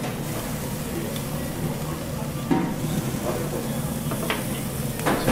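Slices of meat sizzling on a wire mesh grill over charcoal, with a few short clicks of metal tongs on the mesh, about two and a half seconds in and again near the end.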